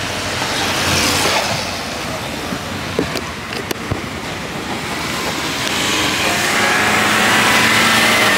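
Quad-bike (ATV) engines running on a street, getting louder in the second half as the group rides off.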